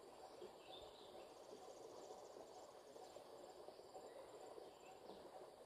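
Quiet outdoor ambience: insects chirping in fast pulsed trains high in pitch, with a few faint bird chirps over a soft steady hiss.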